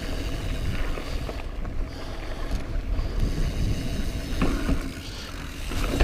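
Mountain bike riding over a rocky section of trail: tyres rolling on rock and the bike rattling, with a couple of sharp knocks. A steady low rumble of wind buffets the microphone throughout.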